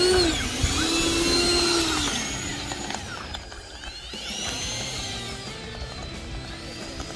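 Electric ducted fans of 80mm Freewing L-39 Albatros model jets whining as the throttle is pushed up and eased back for taxiing. The pitch rises and falls, loudest in the first two seconds, with another rise and fall about halfway through.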